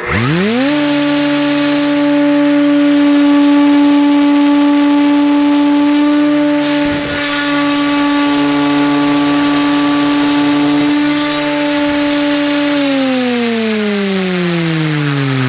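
A 3-horsepower variable-speed router spinning a helicopter tail rotor with 102 mm blades at about 8600 RPM. It gives a loud whine that rises quickly as it spins up, holds steady, then falls in pitch as it winds down near the end.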